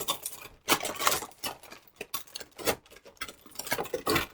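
A small container being handled and worked at to open it: irregular clicks, taps and scraping, with no steady sound.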